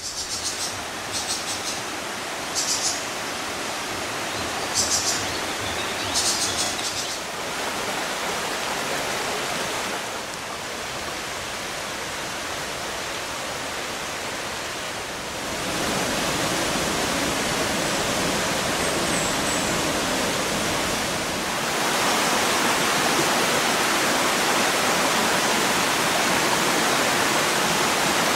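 Rushing water of a rocky stream with small waterfalls and rapids, a steady noise that gets louder in two steps, about halfway through and again later. Several short high chirps sound over the water in the first seven seconds.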